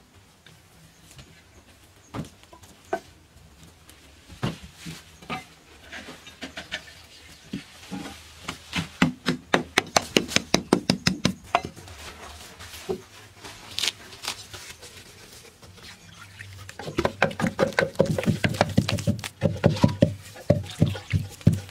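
Hands mixing wet red clay soil with water: a fast series of soft wet slaps and squelches from about seventeen seconds in. Before that come scattered knocks and taps of manual work, with a quick burst of strokes around ten seconds in.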